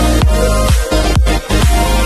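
Electronic dance music with a steady kick drum beat, about two beats a second.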